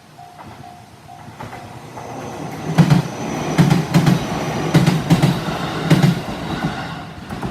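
A JR 313 series three-car electric train passes over a level crossing. Its running noise builds, then the wheels thump over the rail joints in quick pairs as each bogie goes by, and the noise fades near the end. The crossing's warning bell rings about two and a half times a second before the train arrives, and again as it leaves.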